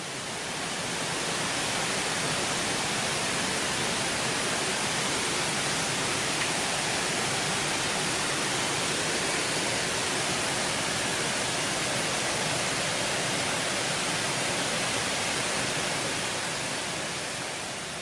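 Waterfall pouring into a rock pool: a steady rushing hiss of falling water that fades in at the start and fades out near the end.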